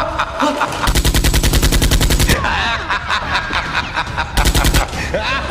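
Two bursts of rapid automatic gunfire: a long burst of about a second and a half, then a short burst of about half a second near the end.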